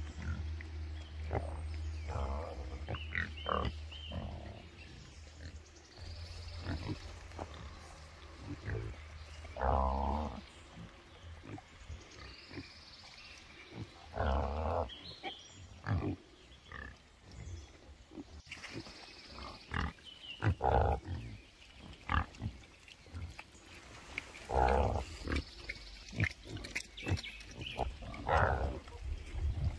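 Pigs and piglets grunting in short, separate calls a few seconds apart while they root in soft muddy ground.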